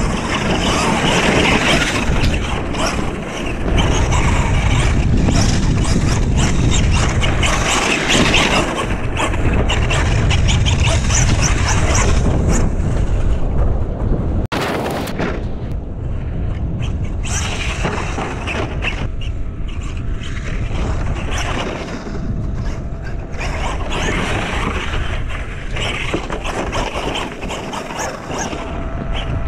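Kyosho USA-1 Nitro monster truck's small two-stroke glow engine running and revving as the truck drives over sand, with a sudden break about halfway through.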